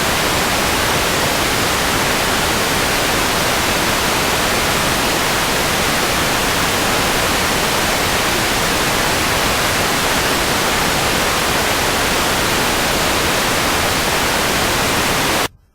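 Loud, steady broadcast static hiss, the noise of a lost or broken relay feed, cutting off abruptly near the end.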